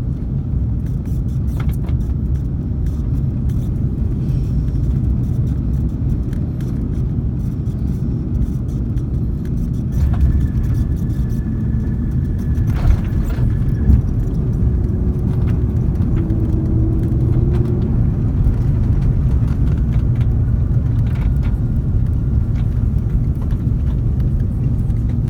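Steady low rumble of an Airbus A330-300's engines and airflow heard inside the passenger cabin, growing a little louder about ten seconds in, with a couple of short clicks a little past halfway.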